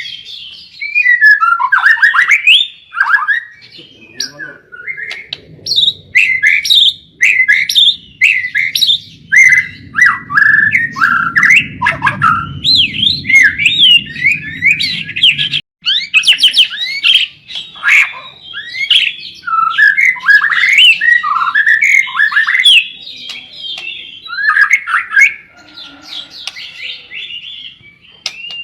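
White-rumped shama (murai batu) singing a continuous run of rapid, varied whistled phrases full of sharp falling slurs, a bird-keepers' training song. A low rumbling noise comes in about four seconds in and cuts off suddenly about halfway through.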